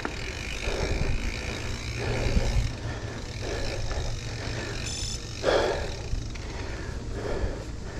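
A mountain biker breathing hard after a climb, slow heavy breaths about every second and a half to two seconds. Under them runs a steady low rumble, and there is a brief squeak about five seconds in.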